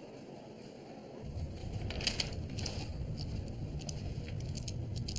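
Pens scratching on paper and papers rustling in a quiet classroom, short scattered scratches over a low steady room rumble that comes in about a second in.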